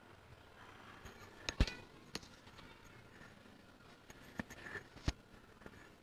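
Faint room noise with a few short, sharp clicks in two small groups, one about a second and a half in and one about four and a half seconds in.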